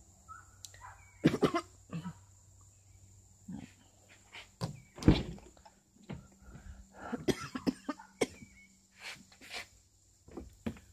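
A man coughing several times in short bouts, mixed with knocks and rustles of a phone being handled at a car's open door; the loudest is a thump about five seconds in.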